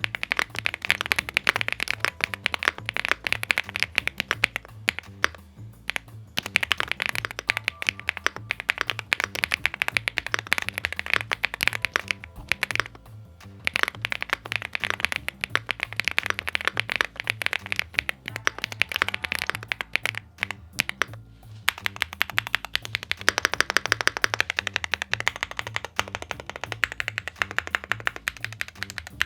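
Typing sound test on a WOBKEY Rainy75 aluminum 75% mechanical keyboard: quick runs of keystrokes on its pre-lubed linear switches and double-shot PBT keycaps, stopping briefly three times. The well-dampened build gives what the owner calls a sound like raindrops.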